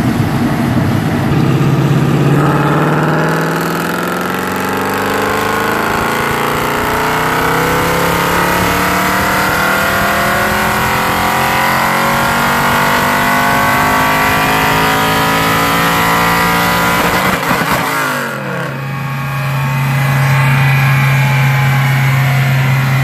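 Mercedes-Benz C63 AMG's 6.2-litre V8, with headers and a tune, making a pull on a chassis dyno. The engine note climbs steadily in pitch for about fifteen seconds, then crackles briefly as it comes off the throttle, drops sharply in pitch and settles into steady running.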